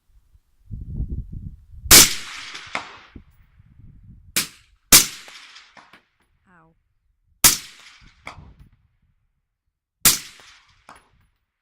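A series of suppressed rifle shots from an AR-15 fitted with a 3D-printed titanium suppressor. Each shot is a sharp crack with a brief tail, a second or two apart, with fainter clicks in between and a low rumble before the first shot.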